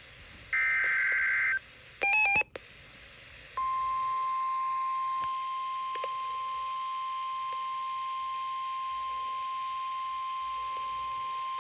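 Alert tones of a weather-radio emergency broadcast: a burst of high warbling SAME data tones, a short patterned beep, then a steady single-pitch warning alarm tone starting about three and a half seconds in and holding. Together they herald a severe thunderstorm warning.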